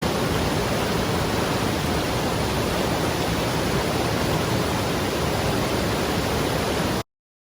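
Creek water rushing steadily in high flow. The sound starts abruptly and cuts off suddenly near the end.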